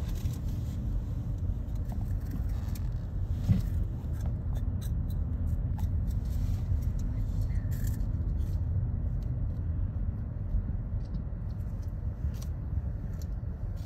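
A car's steady low rumble, heard from inside the cabin, with one light knock about three and a half seconds in.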